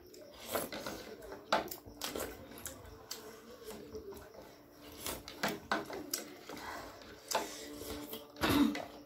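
Eating at a table: a plastic spoon clicking and scraping in a plastic bowl and sipping from the spoon, heard as scattered short clicks. A brief low murmur from one of the eaters near the end.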